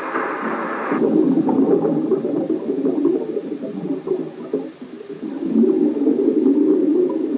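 Underwater bubbling rumble of a scuba diver's exhaled air, in two long surges with a short lull about five seconds in. A hiss fills the first second.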